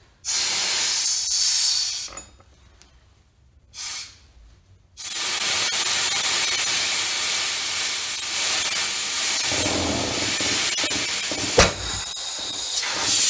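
Compressed air hissing into a single-piston brake caliper through its fitting hole to force the piston out: a two-second blast, a short puff, then a long steady blast. About eleven and a half seconds in, the piston pops loose with one sharp bang, and the air keeps hissing past it.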